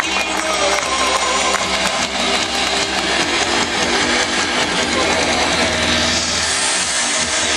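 Loud show music with guitar played over a sound system, carried on a steady deep bass that drops out near the end as the high end swells.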